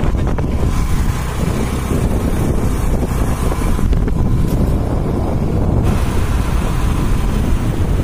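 Wind rushing over the microphone of a moving motorcycle, with the motorcycle's engine running underneath; a steady, loud rumble.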